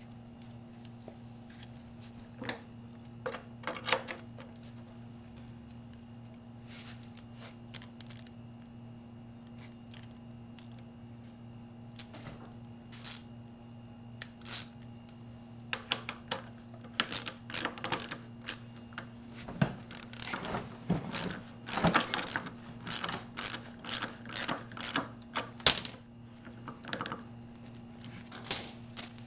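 Socket ratchet wrench clicking as the bolt holding a plastic lawn mower wheel is tightened. A few scattered clicks come first; from about halfway through they come in a quick run, roughly two a second, with a last pair near the end.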